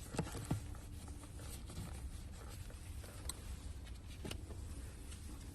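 A few light knocks and clicks from parts and tools being handled over a steady low hum: two knocks just after the start, then single sharper clicks about three and four seconds in.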